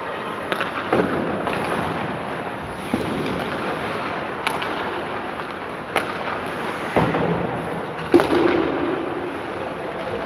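Ice hockey play: skates scraping across the ice and sharp knocks of sticks and puck, about seven of them, over a steady rink hum.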